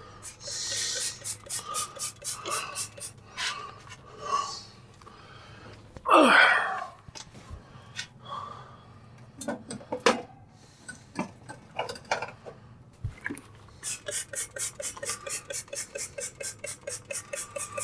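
Quick back-and-forth rubbing strokes, about four a second, as the rim of a front-loading washer's tub opening is wiped and scrubbed clean. The rubbing comes in two spells, near the start and over the last few seconds, with a short grunt-like vocal sound about six seconds in.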